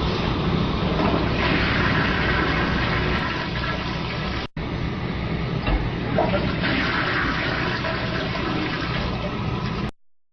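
Toilet flushing: loud, steady rushing water that breaks off for an instant about halfway through, resumes, then cuts off suddenly just before the end.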